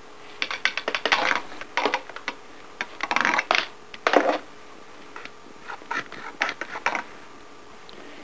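Irregular bursts of clattering and scraping as household objects are knocked and pushed about, in three main flurries with short pauses between.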